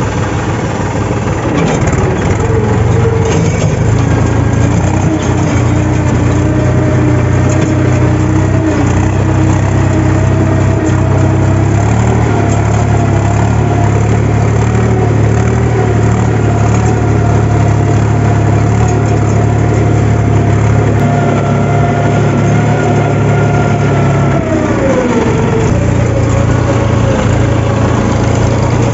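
Mahindra 275 DI XP Plus tractor's three-cylinder diesel engine running steadily under way, heard from the driver's seat. About 24 seconds in, the engine pitch drops as the throttle is eased back.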